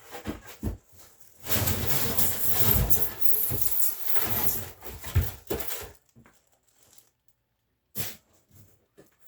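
Cardboard packaging rustling and scraping as an air compressor is pulled out of its box, loudest for about four seconds. A few short knocks come before and after it.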